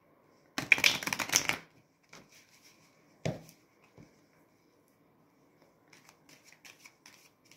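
A deck of playing cards being riffle-shuffled: a rapid, loud flurry of card flicks lasting about a second, then a single knock as the deck is squared on the tabletop. From about six seconds in, a run of softer card flicks, a few a second, as the cards are worked by hand.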